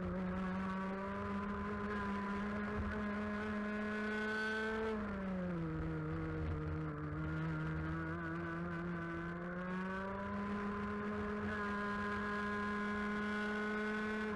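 A 125cc two-stroke TAG kart engine heard onboard, running at high revs, its pitch dropping about five seconds in as the kart slows for a bend, then climbing again about ten seconds in and holding.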